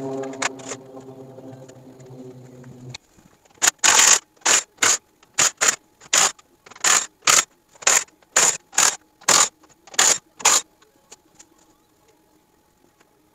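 Background music for the first three seconds, cutting off abruptly. Then a ratchet wrench backing out 10 mm bolts: about fifteen short bursts of ratchet clicking, roughly two a second, stopping a few seconds before the end.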